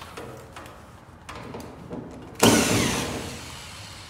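Handheld power drill briefly triggered past halfway through, its motor whirring and spinning down with a falling pitch, after a few light clicks of tool handling.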